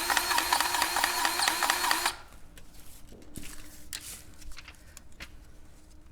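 Powered grease gun running with a rapid, even pulsing whir as it pumps grease into the track tensioner of a New Holland C185 track loader to tighten the track. It stops abruptly about two seconds in, followed by a few faint clicks.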